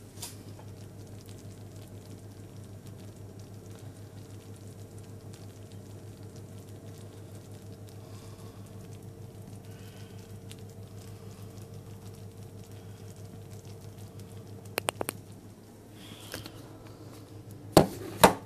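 A steady low hum with a fast, even flutter, over the faint sizzle of rose hip jam simmering in a saucepan. A few quick clicks come about fifteen seconds in, and two loud knocks near the end.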